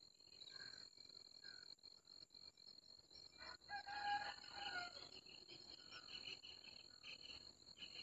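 A rooster crowing once, faintly, about three and a half seconds in, over a steady high-pitched drone of crickets.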